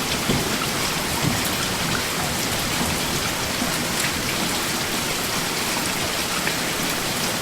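Steady rain falling: an even hiss of rain with fine scattered drop ticks, holding level throughout.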